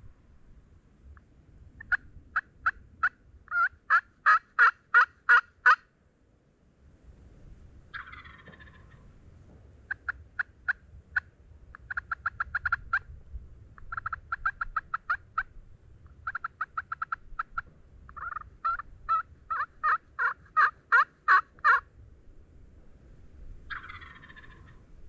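Turkeys calling: several long runs of loud yelps, each a string of sharp notes at about three to four a second, broken twice by a gobbler's falling, rattling gobble lasting about a second, once after the first runs and once near the end.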